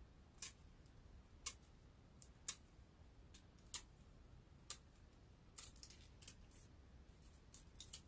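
Scissors snipping through wig lace in short, sharp cuts, about one a second at first, then several quick snips close together a little past halfway and again near the end.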